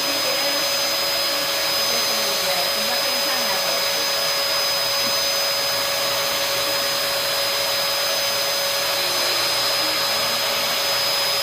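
Vacuum cleaner running steadily, a constant rushing noise with a steady high whine.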